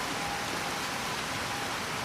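Steady rain falling, an even hiss with no single drops standing out, and a faint thin tone that comes and goes.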